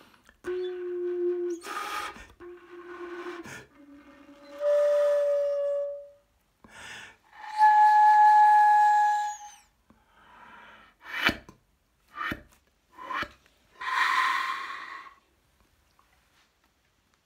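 Disassembled soprano flute played with breathy, airy tones. A low held note and a higher one come first, then a clear whistle-like note with an overtone in the middle. Three short sharp attacks follow, then a final rush of air.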